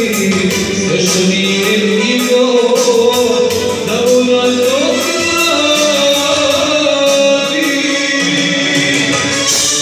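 Man singing into a microphone over backing music with a steady beat, holding long notes.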